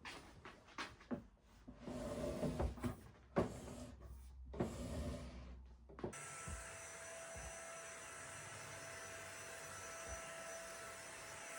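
Knocks and clatter of things being handled, then about six seconds in a small electric motor switches on and runs steadily with a constant whine.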